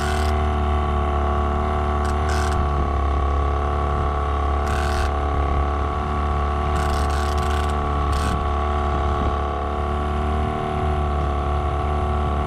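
Boat motor running steadily, a constant low drone with several steady tones. A few brief hissing bursts stand out over it.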